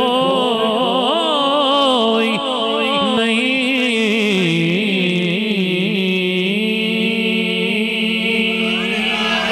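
A man's solo voice singing a naat, a devotional song, through a microphone. He draws out a long melismatic line whose pitch rises and falls slowly, with no words clearly formed, ending near the end.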